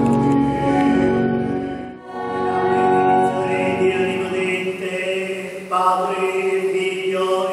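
Choir singing a liturgical chant in long held notes, with a short break between phrases about two seconds in.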